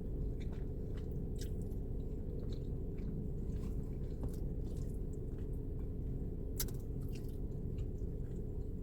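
A person chewing food close to the microphone, with scattered wet mouth clicks, the sharpest about six and a half seconds in, over a steady low background hum.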